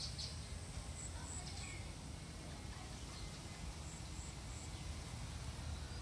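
Outdoor garden ambience: a small bird gives short, very high chirps in two runs of three notes, about three seconds apart, over a steady low rumble.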